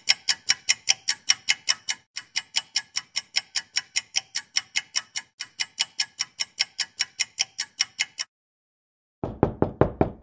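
Rapid, even clock ticking, about five sharp ticks a second, which stops about eight seconds in. Near the end, a quick run of knuckle knocks on a door.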